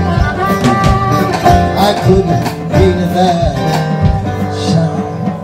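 Live blues band playing: guitar, harmonica, upright double bass and drums together. The harmonica holds long notes in the first part, and the music eases off in level near the end.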